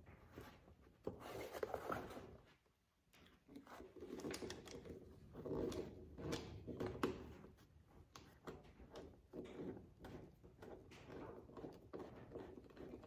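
Faint handling noise as a door storage bag and its screw are worked by hand into the plastic door panel of a Can-Am Maverick Sport Max: scattered rustles, scrapes and light clicks, with a brief pause about three seconds in.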